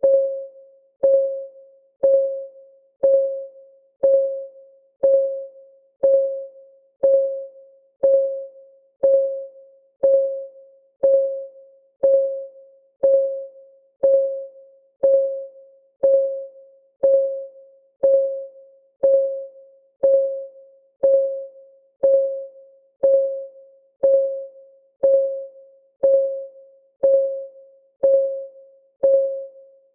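Clock ticking sound of a countdown timer: a sharp tick once a second, each with a short, pitched ring that fades before the next tick.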